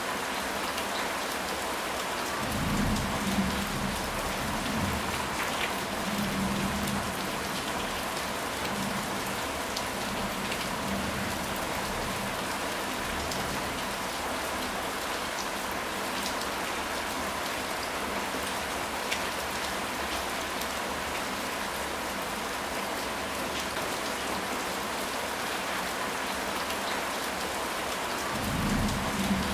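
Steady rain falling, with low rolls of distant thunder rumbling about three seconds in and again near the end.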